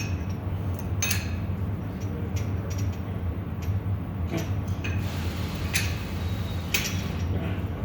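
Hand tools being handled: scattered short metal clicks and clinks, roughly one a second, over a steady low hum.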